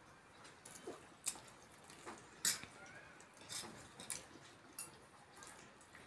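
Eating sounds from sambar-soaked vadas eaten by hand out of steel bowls: soft wet squishing and slurping with scattered short smacks, the sharpest about two and a half seconds in.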